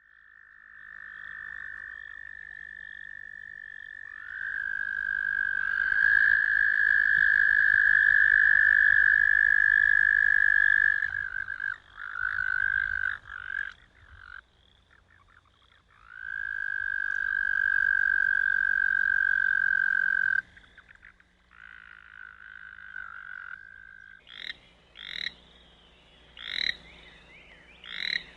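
American toad calling: long, steady high-pitched trills lasting several seconds each, then from near the end a series of short separate croaks about once a second.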